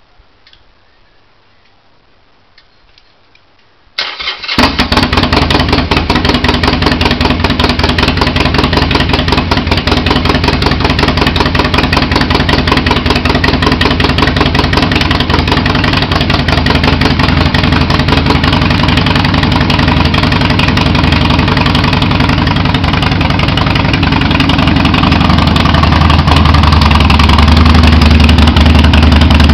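2007 Harley-Davidson Sportster 1200 Custom's V-twin with Vance & Hines exhaust, started from cold: a few faint clicks, then it fires up suddenly about four seconds in and settles into a loud, rapidly pulsing idle, growing louder near the end.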